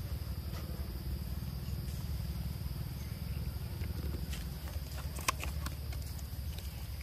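Forest ambience: a steady low rumble with a thin, high, steady insect drone above it, and a sharp click a little past five seconds in.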